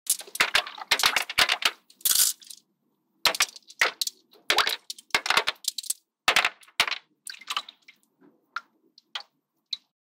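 A quick run of light clicks and taps as small green lily pads are dropped one by one onto the water in a tank. The taps come thick at first, then fewer and fainter toward the end, with a few small ringing clinks among the last ones.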